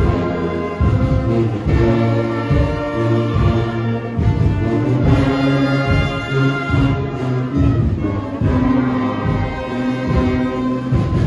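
Guggenmusik carnival brass band playing loud and slightly ragged: sousaphones, trumpets and trombones holding chords over a steady drum beat.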